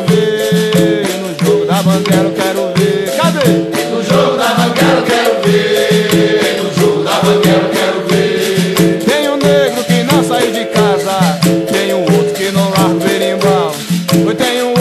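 Capoeira music: berimbaus, musical bows twanged with a stick, and caxixi basket rattles keep a steady repeating rhythm, with voices singing over them.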